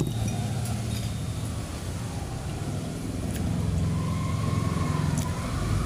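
Strong wind buffeting the microphone outdoors, a heavy fluctuating low rumble, with a few faint clicks.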